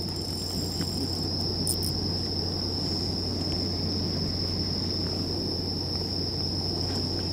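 Insects trilling steadily on one unbroken high pitch, over a low steady hum.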